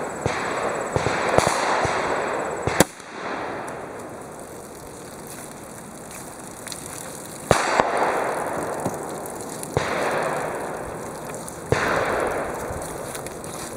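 A single .357 Magnum shot from a 4.2-inch Ruger GP100 revolver, a sharp crack about three seconds in. Outdoor background noise follows, with several fainter sharp cracks later on.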